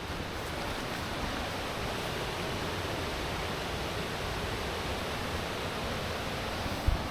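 Hill stream rushing steadily, a constant even hiss of fast water.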